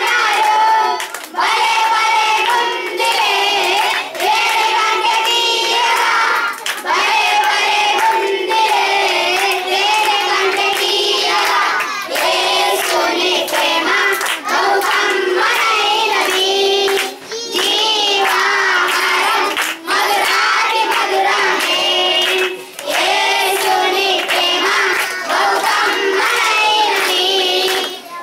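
A small group of boys singing together into a handheld microphone, with hand claps along the way.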